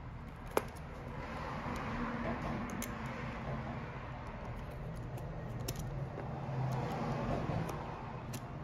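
Utility knife cutting away a boot's old plastic welt, the blade scraping and snicking through it in small scattered clicks, with one sharper click about half a second in.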